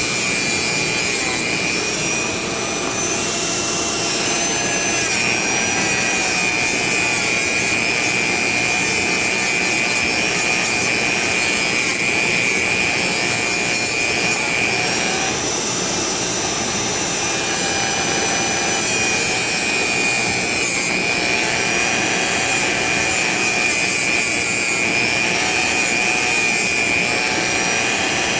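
Dremel rotary tool with a small polishing wheel running at a steady high whine while buffing small metal revolver parts, a rough rubbing hiss of the wheel on the metal under it. The whine sags briefly twice.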